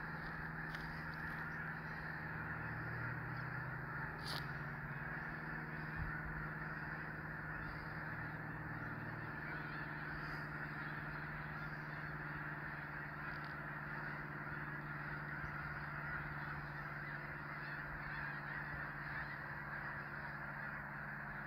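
A huge flock of snow geese calling together: a steady, continuous chorus of many overlapping honks.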